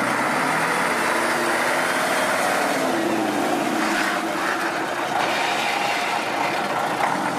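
Praga V3S military truck's air-cooled six-cylinder diesel engine running under load off-road, its pitch rising and falling slightly as the throttle varies.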